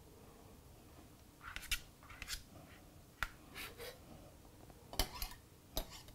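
Faint, scattered taps and light scrapes of a chef's knife and fingers as chopped fresh herbs are pushed off the blade into a glass bowl. The first second and a half is quiet.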